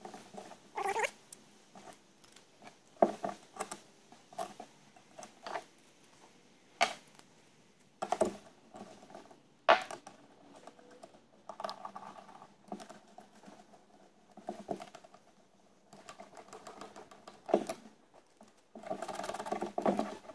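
Metal hand-tool work on a Delco Remy alternator as its housing bolts are put back in: scattered sharp clicks and taps, with a few longer scraping stretches near the middle and the end.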